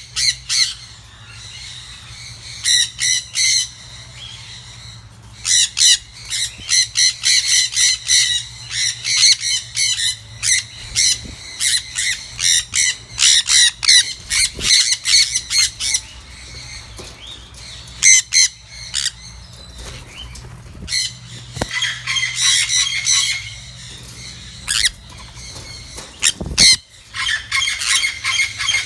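Sun conures screeching: bursts of short, shrill calls fired off in rapid series again and again, with a brief flutter of wings near the end as birds land at the feed bowl.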